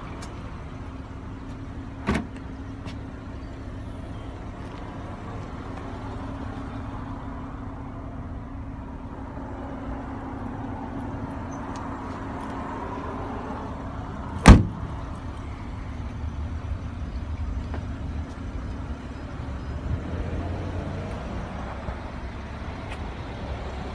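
Trunk of a 2019 Chevrolet Impala: a short sharp click about two seconds in as the lid unlatches, then, past the middle, the lid shut with one loud thud. A steady low hum runs under the first half.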